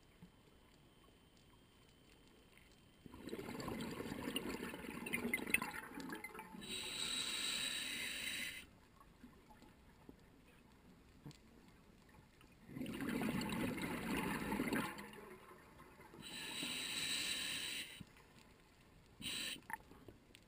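Scuba diver breathing through a regulator underwater: two exhalations as a rush of bubbles, each followed a moment later by the hiss of an inhalation through the regulator, with pauses of a few seconds between breaths.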